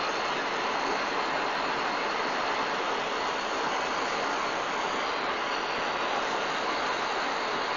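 Handheld gas torch flame burning with a steady hiss, heating the steel frame tubing for soldering.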